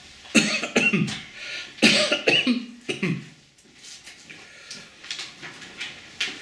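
A man coughing: three hard coughs in the first three seconds, then a few quieter throat sounds.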